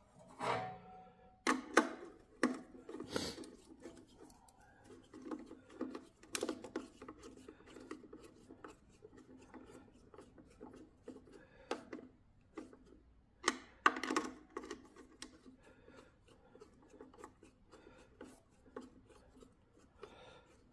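A screwdriver works on a generator's terminal studs inside a steel terminal box while the coil leads and their lugs are handled. There are irregular metallic clicks, knocks and scrapes, the loudest in the first few seconds and again about fourteen seconds in.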